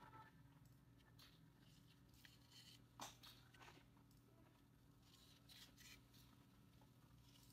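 Faint rustling of yarn drawn through crocheted fabric as a yarn needle stitches it, with a soft tick about three seconds in.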